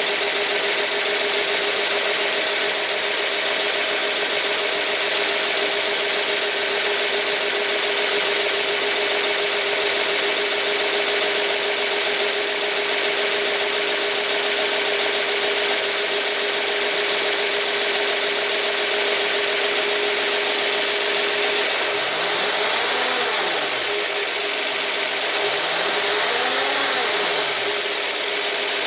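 1978 Ford 351 Windsor V8 idling steadily, run right after its rocker arms were retorqued to cure a loud valvetrain ticking. Near the end its pitch rises and falls back twice.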